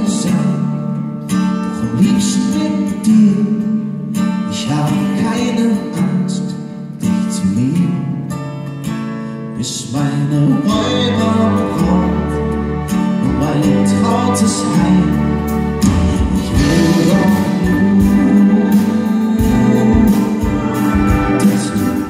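Live music: a pop song played on acoustic guitar with a string orchestra, violins sustaining chords over the guitar.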